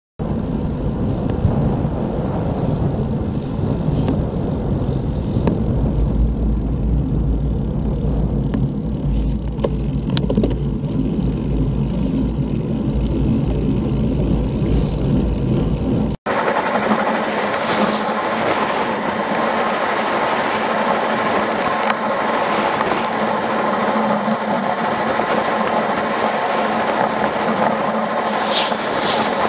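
Wind rushing over the microphone of a camera on a moving bicycle, with tyre noise on tarmac. About 16 seconds in a cut changes it from a deep rumbling buffet to a thinner, hissier rush.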